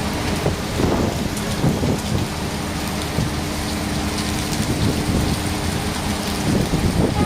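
Rain falling steadily, with many small drop hits close by.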